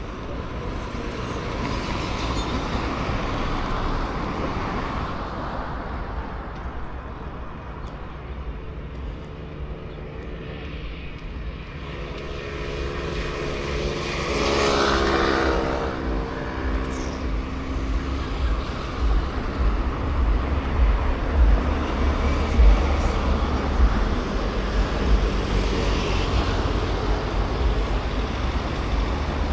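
Street traffic: a motor vehicle passes close by about halfway through, its engine tone swelling and fading, over gusty wind rumble on the microphone.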